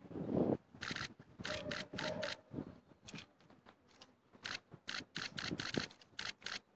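Hushed crowd keeping a minute of silence, with a string of short, irregular scratching and rubbing sounds close to the phone's microphone and a low bump at the very start: handling noise from the hand-held phone.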